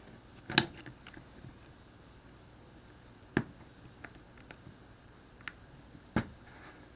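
Sharp clicks and taps of small plastic and metal phone parts being handled and set down while a BlackBerry Curve 8520 is taken apart. There are three louder clicks about three seconds apart, with a few faint ticks between.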